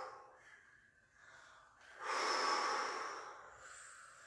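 People blowing out hard through hands cupped at the mouth, a rushing breath sound. One blow fades out at the start, and another begins about two seconds in and trails off.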